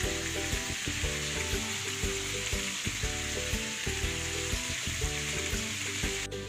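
Hot oil sizzling steadily around whole bisugo (threadfin bream) shallow-frying in a pan, over background music with a steady beat.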